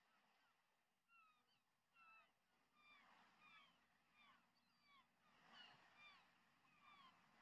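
A flock of seagulls calling faintly: many short, falling cries, overlapping and growing more frequent.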